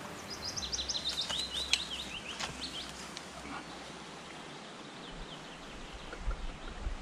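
A songbird singing a quick run of about ten short, high, falling chirps for a couple of seconds, over the steady faint rush of a small river.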